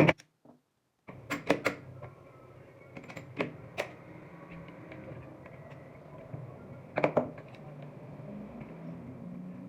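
A handful of sharp clicks and clacks, as when small metal parts of a shotgun are handled and fitted, scattered over several seconds above a low steady hum. There is about a second of dead silence at the start.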